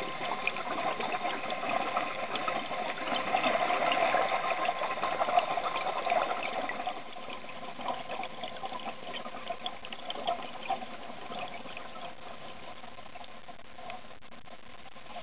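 Underwater recording of scuba diving: regulator exhaust bubbles gurgling and crackling, louder for the first half and quieter from about seven seconds in, over a steady hum with a few fixed whining tones.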